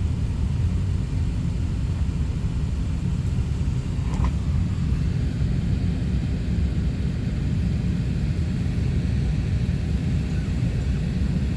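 Steady low rumble of an Airbus A380-800 heard inside the passenger cabin, its four jet engines and the airframe running evenly. A brief faint chirp sounds about four seconds in.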